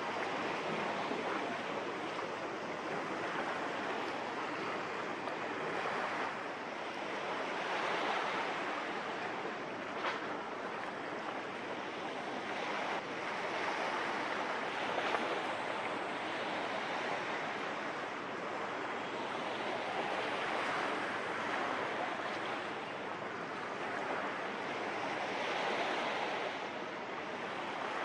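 Small waves washing on the shore: a steady rush that swells and eases every few seconds.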